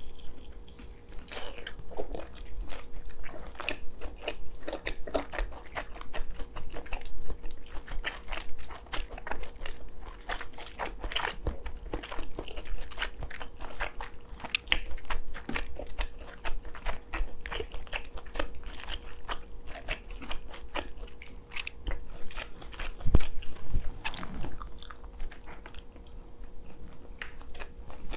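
A person eating close to a microphone: wet chewing and biting, with many small sharp crackling clicks. One louder knock comes about two-thirds of the way through.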